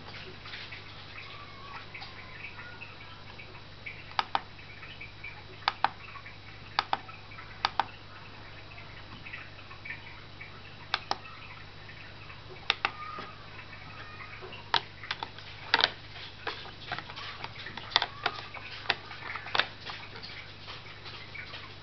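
Sharp plastic clicks, mostly in quick pairs, as the buttons of a digital pocket scale are pressed and released, then a denser run of clicks and knocks near the end as its plastic lid is handled and fitted. A steady low hum runs underneath.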